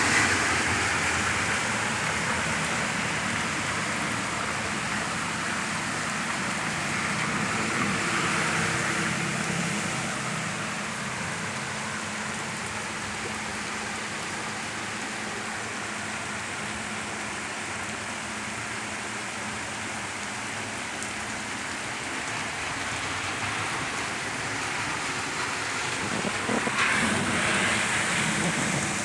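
Torrential rain pouring down steadily, swelling louder for a few seconds at the start, again about a quarter of the way in, and near the end.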